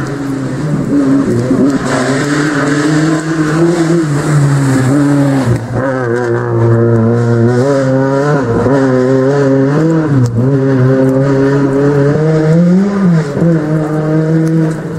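Rally car engine revving hard out of sight, its pitch dropping and climbing again several times.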